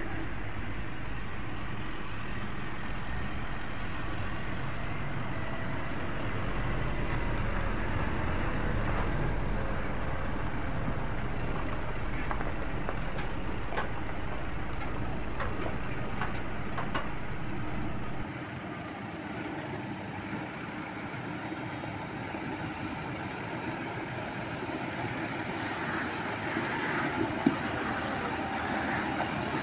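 Claas Arion tractor engine running as it approaches pulling a silage wagon, growing louder towards the end. Clattering and a sharp knock from the rig come in near the end.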